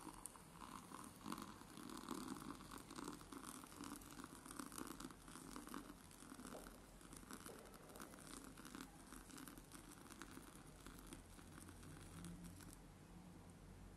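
Faint thin stream of water pouring into a ceramic mug of instant cappuccino powder, with a fine crackling fizz as the powder foams. It stops about a second before the end.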